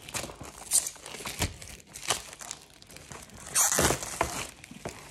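Crinkly packaging rustling and crackling as it is handled and opened, in several short bursts, the longest and loudest about three and a half seconds in.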